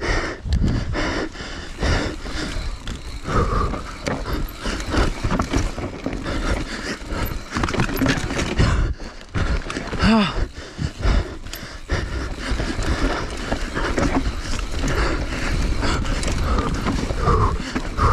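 Mountain bike descending a rough trail at race speed on an onboard camera: wind rushing over the microphone and the bike rattling and knocking over bumps.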